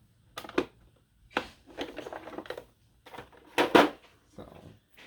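Small tools being handled in a tool cart drawer: a run of irregular clinks, knocks and rattles, the loudest clatter a little over three and a half seconds in.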